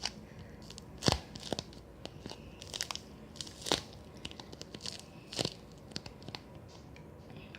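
Homemade toast-shaped squishy being squeezed and handled, giving short irregular crinkling and crackling rustles, several in a row with pauses between.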